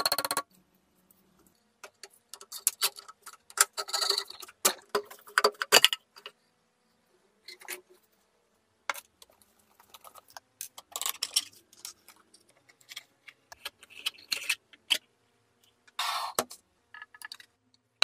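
Small metal hand tools tapping, clicking and scraping against the rusty steel case of an oversized lighter, in short irregular bursts with quiet pauses between them.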